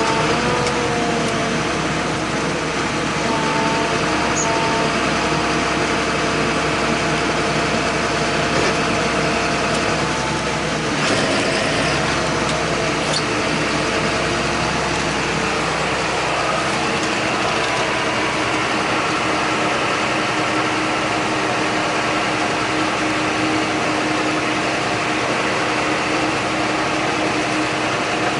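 John Deere 8100 tractor's engine running steadily under way, with a short knock about eleven seconds in and the engine note changing pitch around fifteen seconds in.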